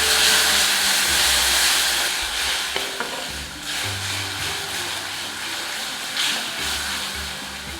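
Chicken sizzling as it fries in a pan while being stirred, with a few sharp scrapes or knocks from the stirring. The sizzle fades toward the end.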